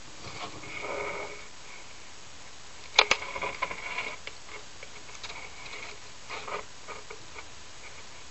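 Quiet room with faint scattered clicks and soft scuffs, and a sharper cluster of clicks about three seconds in.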